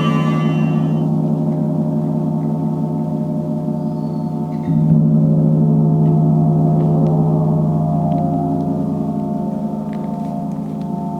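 Gong played in a sound bath: a long low ringing tone with a shimmer of overtones, struck again about five seconds in so that it swells suddenly and then slowly fades.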